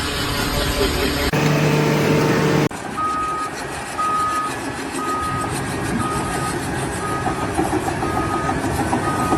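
A vehicle's reversing alarm beeping steadily, about once a second, over running engine and machinery noise. It starts about three seconds in, after a few seconds of a steady humming tone.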